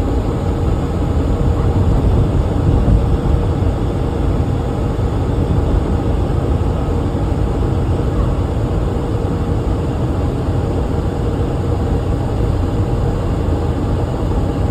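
A car's air-conditioning blower running steadily in the cabin: a dense rushing noise with a steady hum through it.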